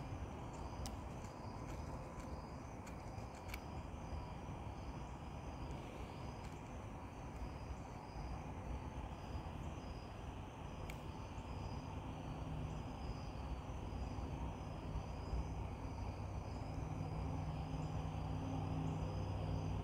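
Insects chirping in a steady, evenly repeating pulse over outdoor background noise. A few sharp clicks come in the first few seconds, and a low steady rumble swells from about halfway on.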